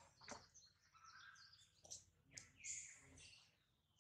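Faint birdsong: scattered high, short chirps from forest birds, with a few soft clicks.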